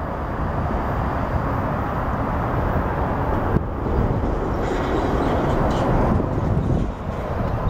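Steady, noisy rumble of a SEPTA Rotem Silverliner V electric multiple-unit train approaching from a distance, mixed with road traffic crossing the overpass.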